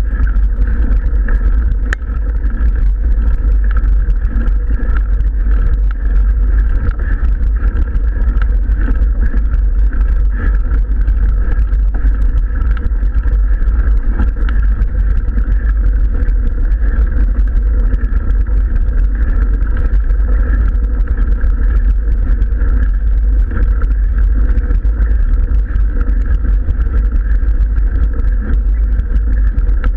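Steady rumble of a mountain bike riding over a gravel road, with wind buffeting the camera's microphone.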